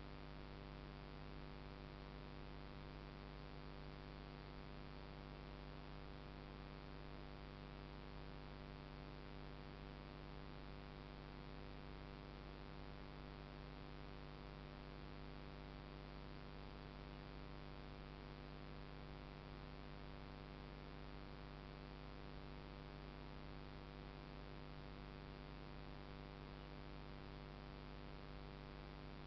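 Steady, faint electrical hum with many even overtones and a hiss over it, unchanging throughout. It is the recording's own electronic noise, with no other sound in it.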